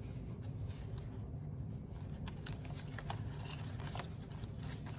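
Paper dollar bills being handled and sorted by hand: faint rustling with a few crisp flicks of the notes from about two seconds in, over a low steady hum.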